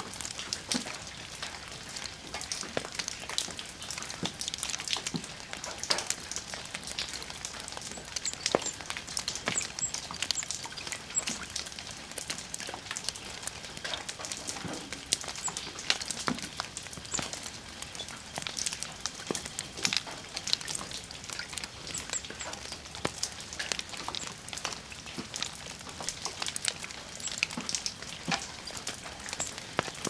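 Water drops falling onto wet stone and shallow puddles: a dense, irregular patter of small drips that keeps going throughout.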